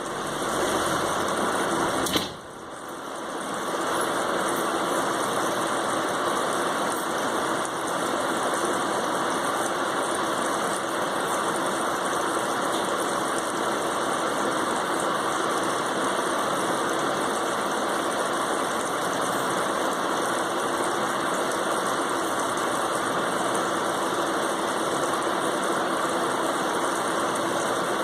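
A steady machine-like running noise, with a sharp click about two seconds in after which the noise briefly drops and builds back up.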